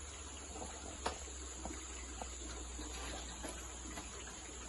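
Faint riverside ambience: a steady hiss with a low hum and water sounds, and one light click about a second in.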